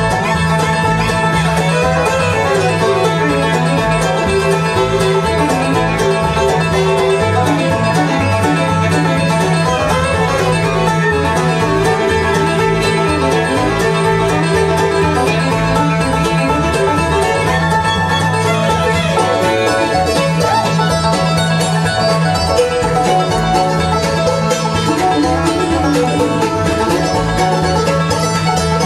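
Live bluegrass band playing an instrumental: a fiddle bowed fast in the lead over plucked-string backing that includes mandolin.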